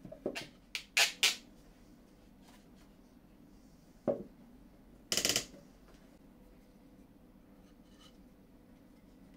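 Turned wooden stool legs knocking together as they are handled: a quick run of sharp knocks in the first second and a half, another single knock about four seconds in, then a brief rattling scrape a second later.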